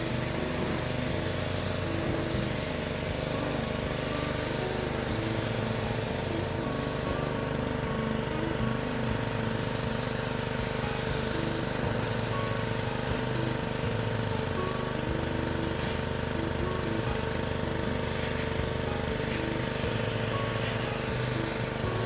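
Gas-engine Honda pressure washer running steadily, with the hiss of the water jet from the spray wand hitting chair fabric.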